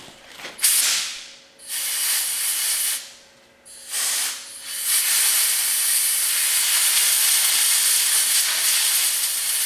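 Compressed-air blow gun hissing as it blows out the grooves of a masked emblem: three short blasts in the first few seconds, then one long steady blast.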